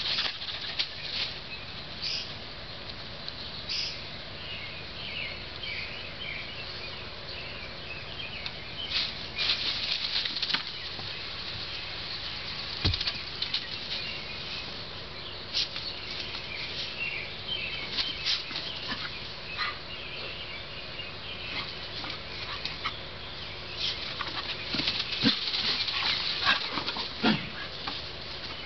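Silver fox scampering and bounding over loose wood shavings, a scratchy rustle of paws with bursts of crackling scuffles and a few soft thuds, busiest near the end.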